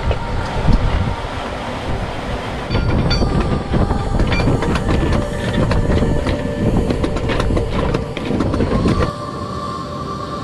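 Sailboat cockpit winch clicking rapidly as a line is winched in, over heavy wind rumble on the microphone. About nine seconds in the rumble and clicking drop away and a steady tone takes over.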